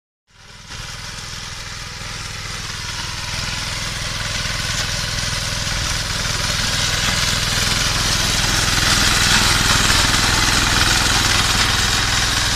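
BCS 622 reaper binder's small engine running steadily while the machine cuts wheat, with a hiss from the working machine above the engine note. It starts abruptly and grows steadily louder as the machine comes close.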